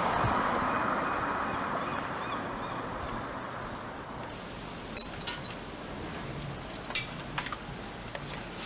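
Wind noise fading away over the first few seconds, then a few sharp, light clinks and taps: one about five seconds in and a small cluster around seven to eight seconds.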